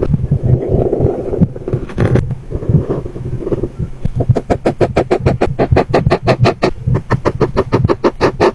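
Felt-tip markers stroking across coloring-book paper in scraping strokes, then from about four seconds in rapid, even back-and-forth scribbling at roughly eight strokes a second.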